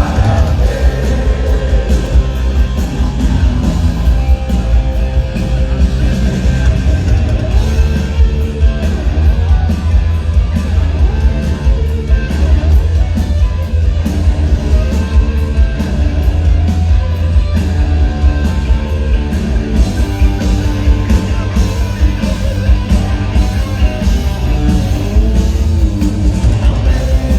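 Live punk rock band playing loud: guitars, bass and drums with a singer, the low end very heavy.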